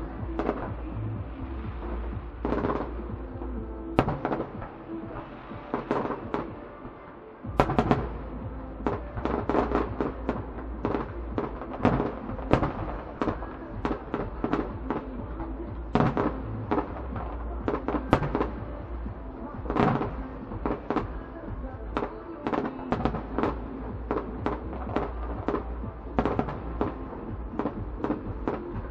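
Fireworks display: aerial shells bursting in a rapid barrage of sharp bangs, with music playing underneath. The bangs are spaced out at first, dip briefly, then come thick and fast after one loud bang about seven and a half seconds in.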